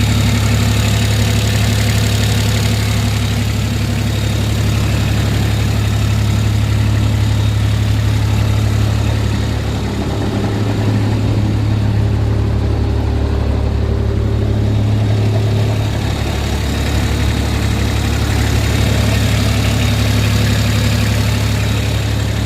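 Kubota RTV-X1140's three-cylinder diesel engine idling steadily, with new exhaust manifold and tailpipe gaskets fitted to cure an exhaust that was too loud.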